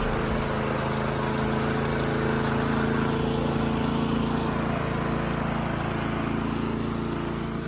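Dyson DC17 upright vacuum cleaner running steadily, its motor giving a constant hum over a broad airy hiss.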